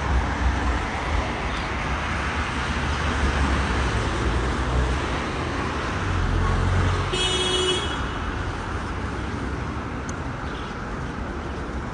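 Steady road-traffic noise with a low rumble from passing vehicles. About seven seconds in, a short high-pitched toot sounds for under a second.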